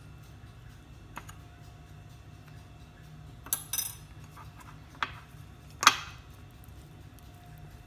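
A handful of short kitchen clinks and knocks, five in all and the loudest about six seconds in, over a low steady hum.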